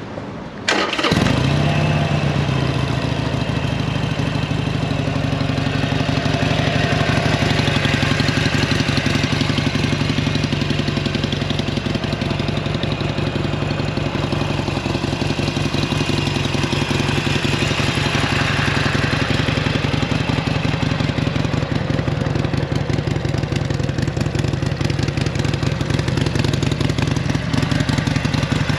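Stock 2019 Harley-Davidson Sportster 883 Iron's air-cooled V-twin cranks briefly on the starter, catches about a second in and settles into a steady, even idle.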